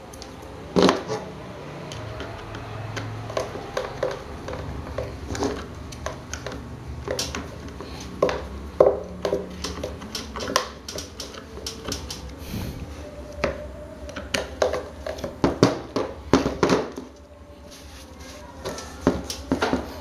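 Metal and plastic parts of a table fan motor assembly clicking and knocking as they are handled and fitted together by hand, with a few louder knocks among many light clicks.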